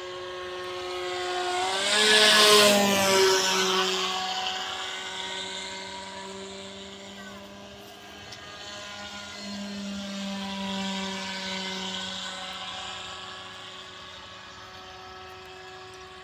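Remote-control model airplane's brushless electric motor and 18-inch propeller in flight overhead, a steady high whine. It swells loudest as the plane passes close about two seconds in, its pitch rising and then dropping, fades, and swells again around ten seconds.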